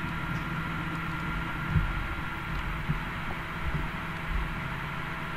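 Steady low hum in the background, with a few soft low thumps through the middle.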